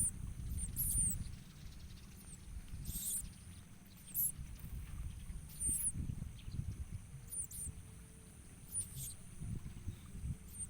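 Ciblek koya prinias chirping at the nest: short high-pitched chirps about every one to two seconds, over a steady high thin tone and a low rumble.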